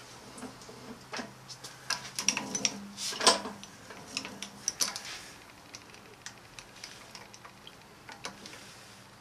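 Drill press with a 9 mm drill running and cutting into a Revtech 110 cylinder head: a low steady motor hum under irregular small metallic ticks and clicks, busiest and loudest from about two to five seconds in.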